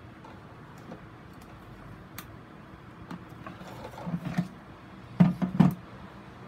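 Hands handling a plastic grid mounting board while tying fishing line through it: scattered light clicks and rustles, then a few sharp plastic knocks a little after five seconds in as the board is shifted on the plastic tray.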